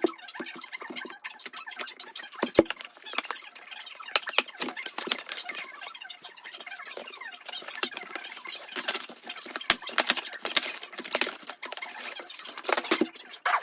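Hands handling a boxed diecast model car and its packaging: irregular clicks, taps and short scraping rustles, denser in the second half.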